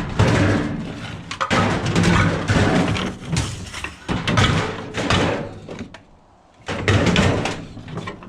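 Repeated bangs and clattering of scrap items being handled and loaded into a van, with a brief lull about six seconds in.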